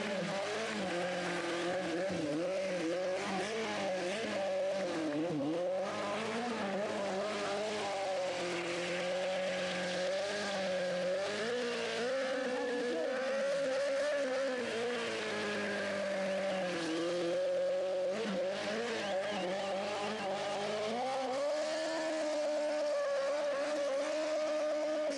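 Yamaha sport motorcycle doing a burnout: the engine is held at high revs, its pitch wavering up and down, while the spinning rear tyre scrubs on the asphalt.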